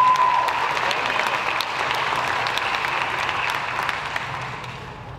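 Audience applauding in a large hall, dying down over the last second. A steady high tone sounds over the clapping for about the first second.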